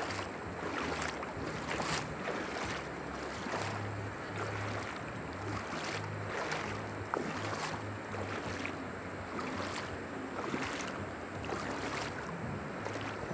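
Steady rushing of a wide, high-flowing river.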